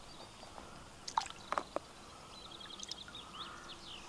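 Lake water splashing and dripping as a common carp is let out of a landing net, with a few sharp splashes about a second in. A bird chirps faintly in the background near the end.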